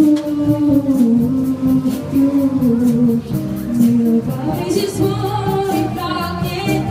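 A school big band playing live: a long melody line held and stepping down over a steady cymbal beat.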